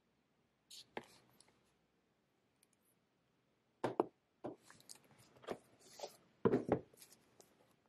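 Light knocks, taps and clicks of a pen and other things being handled on a desk, with a brief papery rustle about a second in and a busier run of knocks in the second half as objects are picked up and moved.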